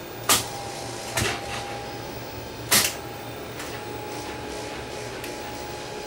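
A few sharp clicks and knocks from the front-panel buttons and controls of a Tektronix 2465B oscilloscope being set up by hand, the loudest about three seconds in, over a steady low hum.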